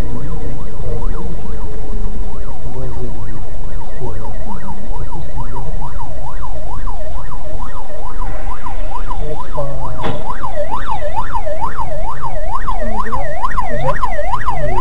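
Emergency vehicle siren in a fast yelp, rising and falling about two and a half times a second and growing louder, over a loud steady road rumble. A sharp knock comes about ten seconds in.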